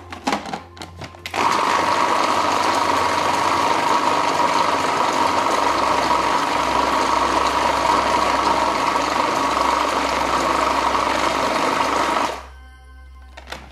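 Electric food processor blending a thick, creamy cheesecake filling, its motor running with a steady whine for about eleven seconds. A few clicks come first as the lid is set in place, and the motor cuts off abruptly near the end.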